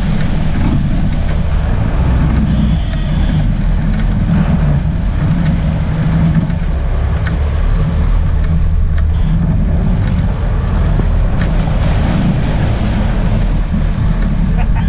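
Sportfishing boat's engines running steadily, a continuous low rumble, with water churning along the stern and wind on the microphone.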